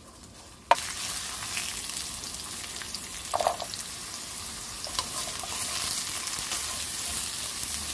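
Korean radish and carrot strips sizzling in hot oil in a nonstick wok, stirred with a wooden spoon. The sizzle starts suddenly with a click about a second in and then runs as a steady hiss.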